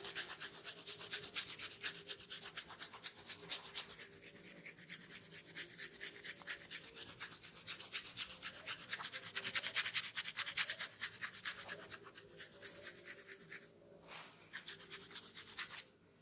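Fast, rhythmic scratching of a dry, dandruff-flaked scalp through the hair to loosen the flakes, in quick even strokes. The strokes break off briefly near the end and then resume.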